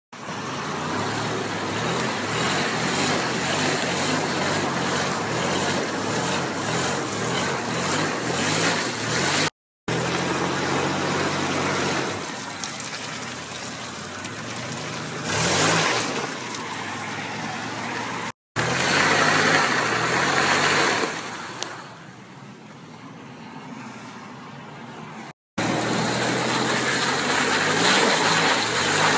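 1992 Toyota 4Runner driving through deep mud: the engine runs steadily under load while the tyres churn through the mud. It comes in several stretches split by three brief cuts, with two quieter spells.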